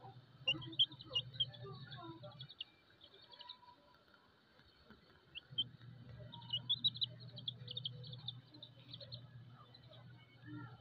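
Chicks peeping from under a brooding hen: quick runs of short, high chirps in two bouts, with a low hum underneath for much of the time.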